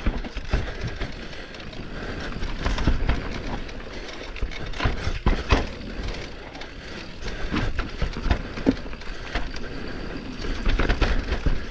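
Electric mountain bike ridden down a rough trail: tyres rolling over dirt and roots with a low rumble, and frequent knocks and clatters from the bike over the bumps.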